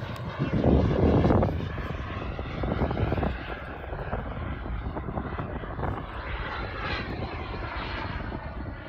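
Pirotti Rebel Classic radio-controlled model airplane's engine running in flight, with a louder surge about a second in.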